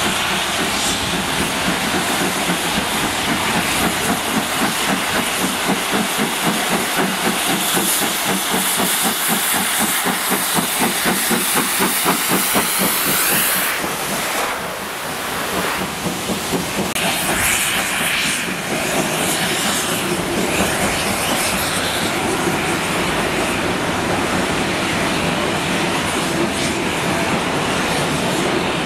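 BR Standard Class 7 'Britannia' steam locomotive working hard with a train of coaches, its exhaust beats in a fast, regular rhythm that grows louder as it approaches. About halfway through it passes, and the coaches roll by with wheels clattering over the rail joints and a hiss of steam.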